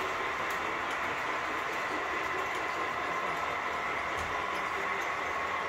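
Model freight trains running on a layout's track: a steady rolling rumble of small wheels on rails with a steady electric motor whine over it.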